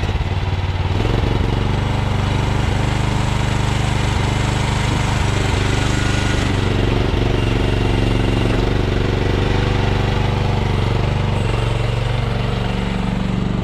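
A mini excavator's 13.5-horsepower Briggs & Stratton XR engine running steadily under hydraulic load as the machine is operated. Its pitch rises about a second in, wavers in the middle and drops near the end.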